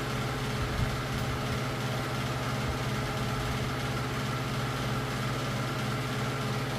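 Steady machine hum: a low drone with a few fixed higher tones, unchanging throughout, with a faint knock just under a second in.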